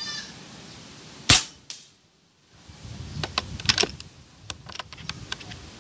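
Pre-charged pneumatic air rifle firing a single shot: one sharp crack about a second in that dies away fast, with a fainter click just after. From about three seconds on, a run of sharp clicks and rattles as the multishot bolt is worked.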